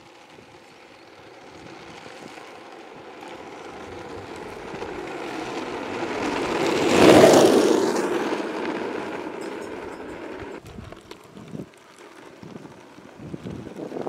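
Skateboard wheels rolling on a rough asphalt road, a steady rumble that grows louder as the rider approaches, peaks about seven seconds in as he passes close by, then fades as he rolls away. A few light knocks near the end.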